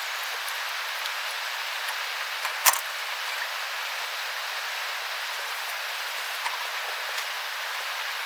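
A steady, even hiss with one sharp click about two and a half seconds in and a few faint ticks after it.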